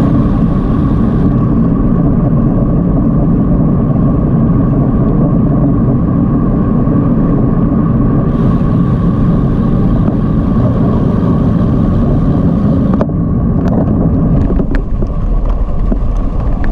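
Wind rushing over a moving bicycle-mounted action camera's microphone, with tyre noise on the road. About thirteen seconds in the rush eases a little and a scatter of light clicks comes through.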